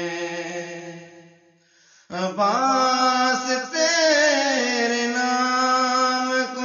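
A man singing a naat without accompaniment. A long held note fades out about a second and a half in, and after a short breath a new phrase begins, with wavering, ornamented notes that settle into a long held tone.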